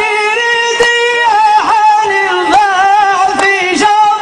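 A man singing a Tunisian folk song into a microphone, drawing out long, wavering held notes. Sharp drum-like beats fall roughly once a second beneath the voice.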